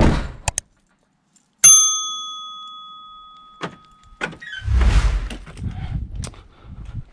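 A single bright metallic ring, struck once, dying away over about two and a half seconds, followed by a spell of low clattering rumble.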